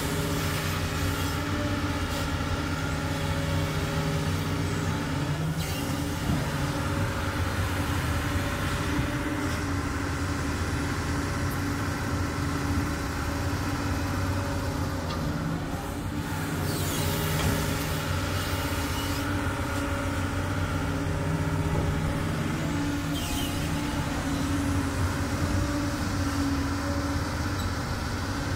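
Doosan DX200 crawler excavator's diesel engine running steadily, its note shifting a few times, with faint scraping sweeps now and then.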